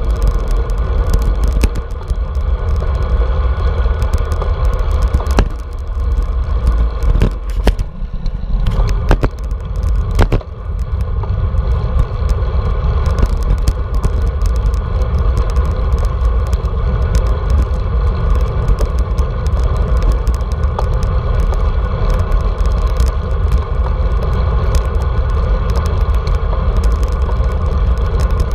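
Wind buffeting a handlebar-mounted GoPro on a road bike rolling along pavement, mixed with road rumble from the tyres, steady, with scattered clicks and rattles throughout. The wind noise eases briefly about a third of the way in, where a few sharper clicks stand out.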